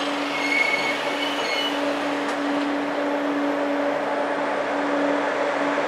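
TGV trainset rolling slowly past: a steady rumble of wheels on rail with a constant low hum. Faint high-pitched squeals come and go in the first two seconds.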